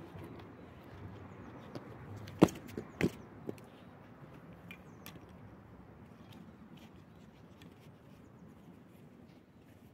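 A quick cluster of four sharp knocks, the first and loudest about two and a half seconds in and the rest within the next second, over a faint steady background.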